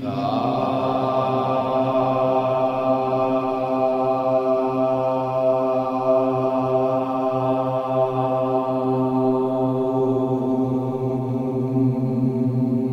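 Meditation music: a chanted drone holding one steady pitch throughout, starting afresh right at the beginning.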